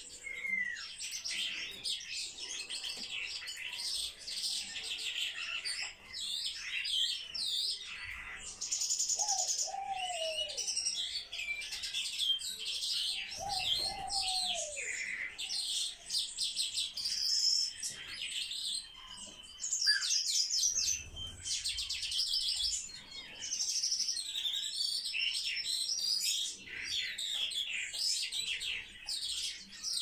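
Swallows twittering continuously, a fast chatter of high chirps and trills with a buzzy rattle about nine seconds in, and a few lower, falling notes around nine and fourteen seconds.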